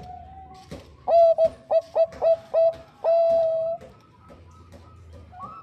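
Perkutut bangkok (Thai-bred zebra dove) cooing: a run of about six short notes, each with a quick rising start, then one longer held note. Fainter cooing runs before and after it.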